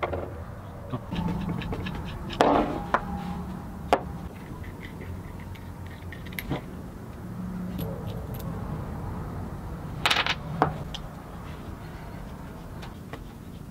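Small metal parts of a disassembled egg beater hand drill, the chuck pieces and screws, clicking and clinking as they are handled and set down on a wooden workbench. A few sharper knocks are scattered through, the loudest a quick cluster about ten seconds in.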